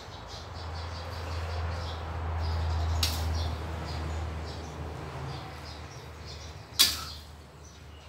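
Glass noodles being stir-fried in a steel wok over a gas burner: steady sizzling over a low hum, with the spatula scraping through the noodles. The spatula clanks sharply on the wok twice, about three seconds in and, louder, near the end.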